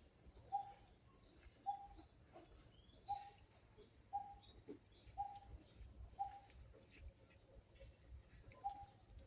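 Birds calling: one bird repeats a short, low-pitched note about once a second, while other birds give thin, high, falling chirps, over a steady high hiss. Faint throughout.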